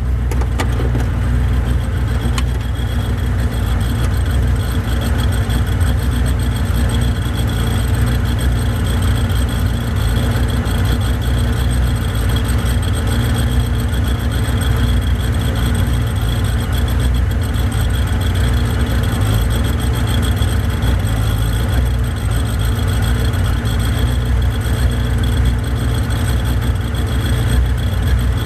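Radical SR3's 1500cc engine idling steadily while the car stands still, heard from on board the car.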